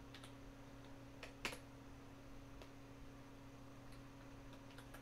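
A few computer keyboard keystrokes: scattered single clicks, the loudest about one and a half seconds in, over a faint steady hum.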